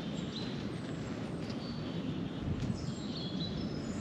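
Open-air ambience: a steady low background rush with a few short, high bird chirps scattered through it.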